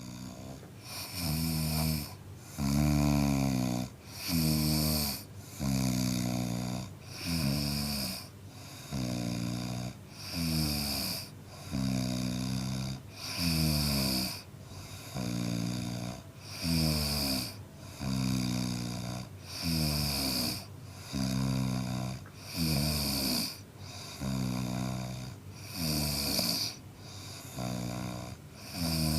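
A man snoring in a steady rhythm, with about one rasping, pitched snore every second and a half.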